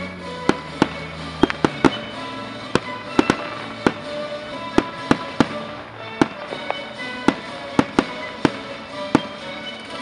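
Aerial firework shells bursting in quick, uneven succession, about two sharp bangs a second, with music playing from a radio underneath.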